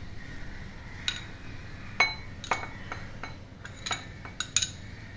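Metal spoon clinking and scraping against bowls while chopped onion, coriander and green chilli are spooned from one bowl into a glass bowl of fried potatoes: about six sharp clinks, some with a short ring.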